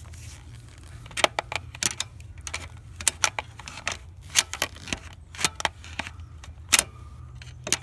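Irregular metallic clicks and clinks of a screwdriver and hand tools knocking against engine-bay parts while fishing out a dropped nut, starting about a second in, over a low steady hum.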